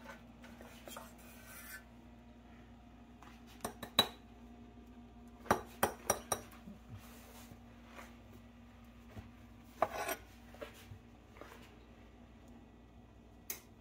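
A metal utensil clinking and scraping against a stainless steel roasting pan and a ceramic plate while baked fish are lifted out. The knocks are scattered: one sharp clink about four seconds in, a quick cluster a couple of seconds later, a few more near ten seconds and another near the end.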